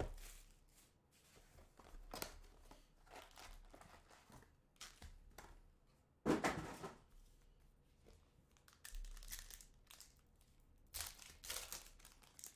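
Trading-card packs being torn open by hand, the wrappers crinkling in short, scattered rustles, with one louder bump about six seconds in.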